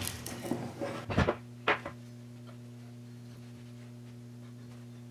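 A few clicks and knocks as tools and parts are handled on a workbench, the loudest about a second and a half in, then only a steady low electrical hum.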